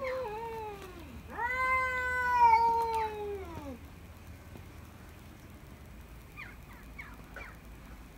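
Cats threat-yowling at each other in a standoff. One long drawn-out yowl trails off about a second in, then a second one lasts about two and a half seconds and slides down in pitch as it ends; a few faint short sounds follow near the end.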